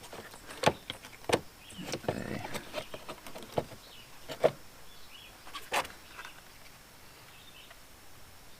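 Scattered sharp clicks and knocks, about six over several seconds, of parts and tools being handled in a car's engine bay.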